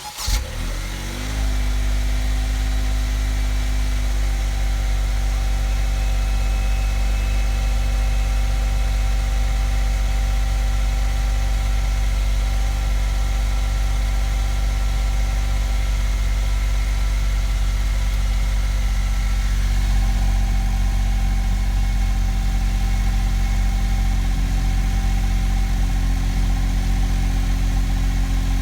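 Honda S660's turbocharged 658 cc three-cylinder engine starting at once, catching within about a second, then idling steadily through its stock exhaust, with a slight change in its note about twenty seconds in.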